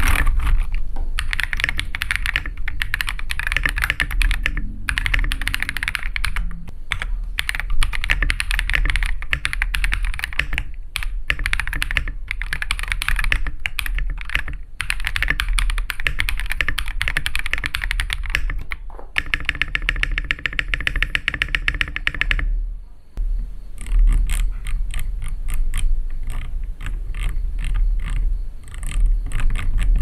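Typing sound test on a Kiiboom Phantom 81 gasket-mounted translucent mechanical keyboard with translucent hot-swappable switches: a dense stream of keystroke clacks. Around two-thirds through comes a short run of very fast, evenly spaced clicks, then sparser, more spaced clicks near the end as the keyboard's volume dial is turned.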